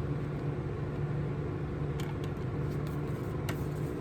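Steady low mechanical hum, with a few light clicks about two seconds in and again near the end.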